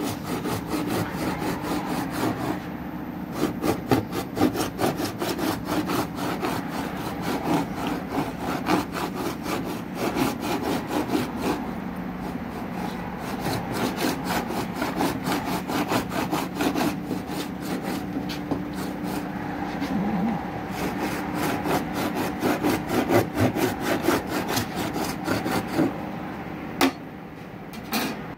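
Hand hacksaw blade sawing through the plastic outer tub of a washing machine along its welded seam, in rapid rasping strokes that stop near the end. The sealed tub is being cut open to reach and replace the drum bearing.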